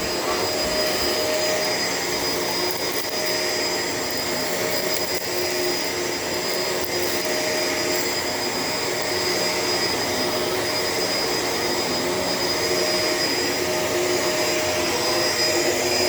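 Shark LA702 Lift-Away upright vacuum cleaner running steadily as it is pushed over the floor, a constant motor whine over the rush of air, with faint crackles of debris being picked up.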